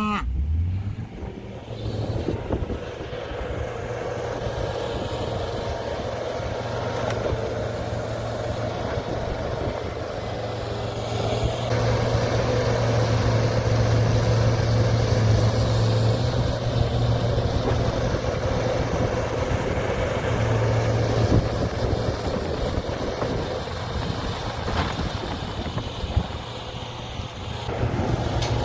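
A farm vehicle's engine running steadily with a low hum, growing louder about halfway through and then easing back.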